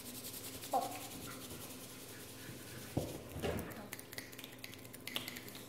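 A group of young children rubbing their palms together, a soft steady swishing that imitates light rain. About halfway through they switch to tapping fingertips against their palms, a scatter of light taps for raindrops.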